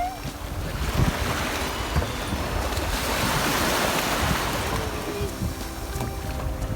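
Sea surf breaking and washing up the shore, swelling to a peak midway and easing off, with wind rumbling on the microphone.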